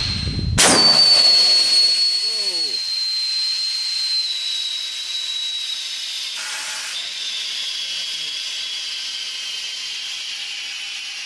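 High-pressure air-helium mix hissing out of a 20mm big-bore air rifle, with a steady high whistle that slowly falls in pitch as the hiss gradually fades. A sharp crack comes about half a second in. The leak follows a shot on which something in the rifle broke.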